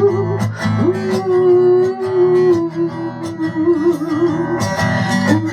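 Song accompaniment on acoustic guitar, with a long-held melody line above it that wavers in pitch.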